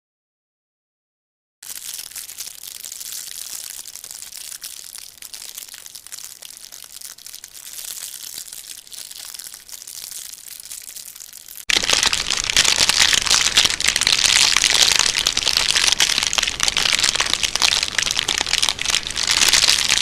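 Dense crinkling crackle, a material being crumpled, starting after a second and a half of silence; about twelve seconds in it turns much louder and fuller.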